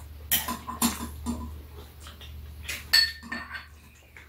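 Metal chopsticks and spoon clinking against ceramic bowls and a metal serving tray during a meal: several separate clinks, the loudest about three seconds in with a brief ring. A low steady hum runs underneath.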